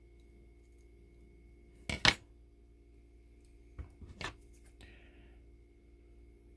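Steel scissors clacking down onto a wooden workbench about two seconds in, then a few lighter clicks from handling the small wire fence panel. A faint steady hum runs underneath.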